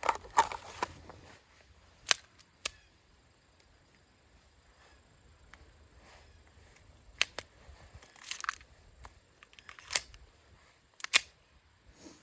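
Sharp metallic clicks and clacks from handling 9mm pistols, likely the Glock 19 being worked to clear a malfunction. About eight single clicks come at uneven gaps, the loudest about two seconds in and again near the end.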